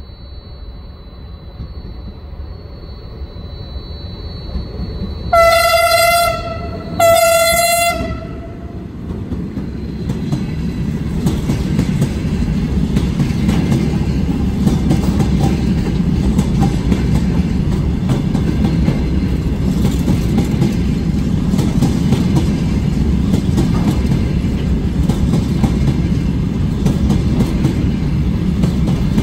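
A diesel freight locomotive approaches, growing louder, and sounds its horn in two blasts about five and seven seconds in, each on a single note. Then the locomotive and its freight wagons run past loudly, with wheels clattering over the rail joints.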